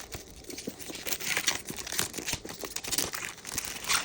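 Thin plastic shrink-wrap being torn and pulled off a product box, crinkling in irregular bursts, loudest about a second in and again near the end.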